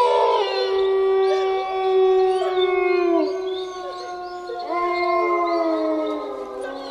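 Wolves howling together: several long, held howls overlapping at different pitches, some sliding down as they end, with a fresh howl rising in near the end.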